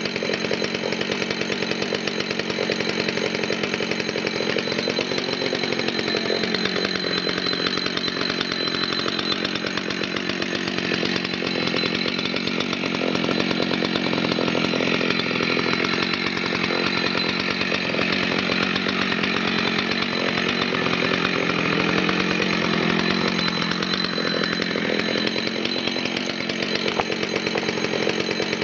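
Husqvarna 61 two-stroke chainsaw engine idling steadily, its pitch drifting slowly a couple of times.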